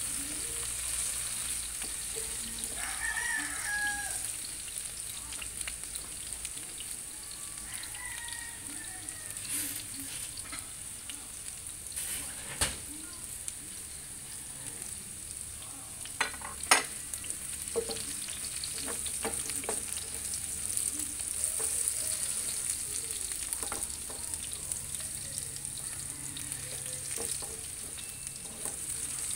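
Cubed carrots and potatoes sizzling steadily in hot oil in a frying pan, stirred with a spatula that knocks sharply against the pan a few times near the middle. A rooster crows briefly early on.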